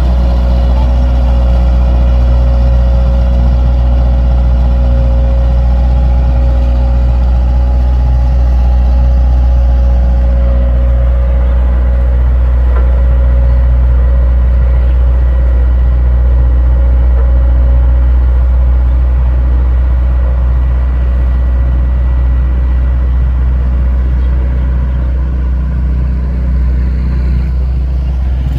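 Vibratory road roller's diesel engine running steadily with a strong deep hum as it compacts the road.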